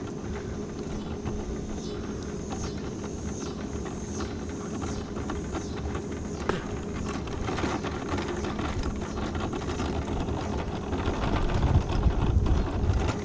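Electric mobility scooter driving along a cracked asphalt road: a steady motor hum with tyre noise and small bumps from the rough surface. A low rumble grows louder near the end.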